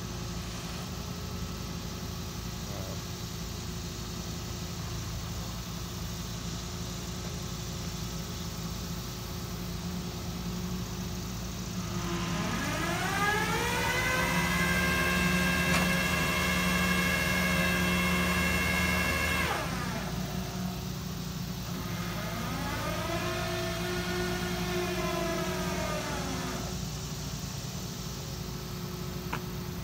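A vehicle engine idling steadily. Partway through, a whine climbs in pitch, holds for several seconds and cuts off sharply. A shorter whine then rises and falls again.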